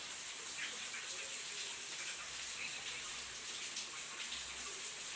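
Torrential rain falling, a continuous even hiss with no let-up.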